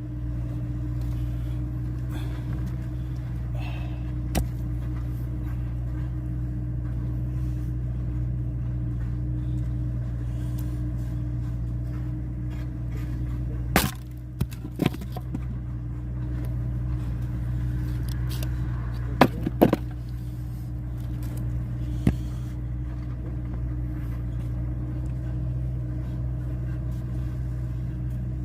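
A small engine running steadily with a low drone, while a few sharp cracks and knocks sound now and then, the loudest pair about two-thirds of the way in.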